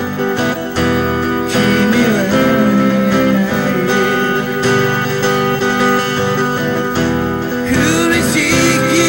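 Acoustic guitar song in an instrumental passage of steadily played chords. Singing comes back in near the end.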